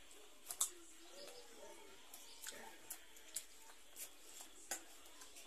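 Wet lip smacks and chewing clicks from mouths eating soft chhena sweets: about seven short, sharp smacks spread through, with faint mouth noise between.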